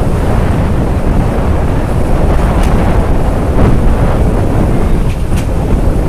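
Passenger train running over a sea bridge, heard from an open coach door: a loud, steady rumble of wind buffeting the microphone over the train's running noise. Two brief high clicks sound about two and a half and five seconds in.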